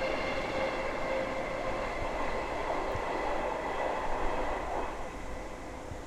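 A train running past: a steady rushing rumble with high ringing tones over it, easing off near the end.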